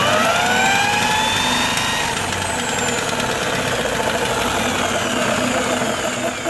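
A power tool spinning a Talon lawnmower's engine over by its crankshaft, with the spark plug out to check for spark. The whine climbs as it spins up over the first second or two, then sinks slowly while it keeps turning.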